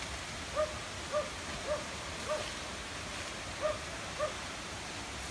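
An animal's short pitched calls, repeated about twice a second with a pause in the middle, over a steady background hiss.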